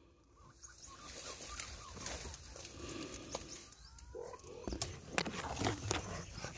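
Birds calling, mixed with a string of sharp clicks and knocks that are loudest about five seconds in.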